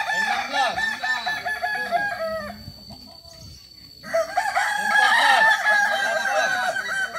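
Several kukuak balenggek roosters crowing over one another, their long crows broken into quick repeated syllables, about five a second, in the stepped style of the breed. The crowing drops away for about a second and a half midway, then starts again, louder.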